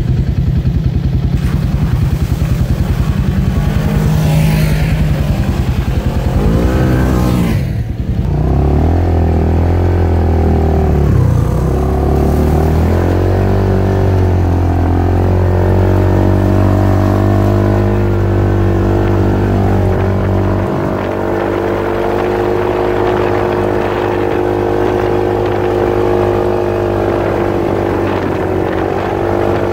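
Polaris RZR side-by-side engine running close by: a pulsing idle at first, revving up about eight seconds in, then pulling steadily as the machine drives along the trail.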